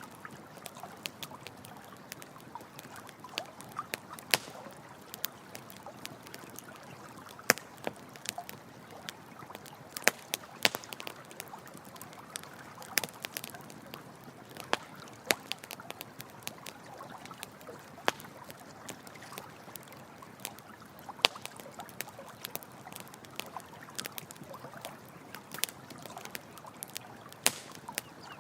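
Campfire crackling, with sharp irregular pops and snaps, over the steady rush of running water.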